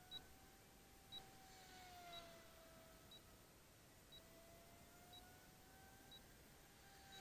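Near silence, with a faint short tick about once a second and a faint tone that slowly rises and falls.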